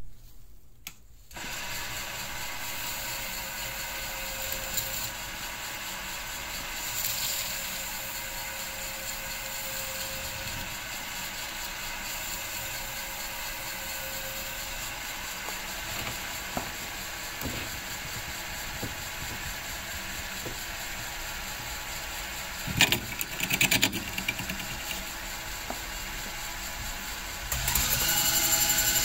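A small metal lathe starts up about a second in and runs steadily, its motor giving a steady whine while it spins a pool cue ferrule. A couple of brief, louder rough rubbing noises come a little before the end, and the running gets louder near the end.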